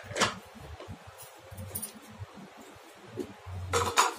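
Light clinks of a spoon against kitchen crockery: one about a quarter second in and a couple more near the end, with quiet in between.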